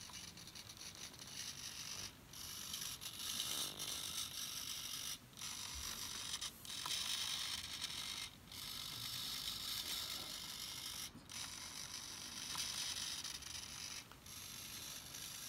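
Small hobby servo motor (GW Servo) whirring with a gear buzz as it sweeps an ultrasonic sensor back and forth. It stops briefly about every three seconds.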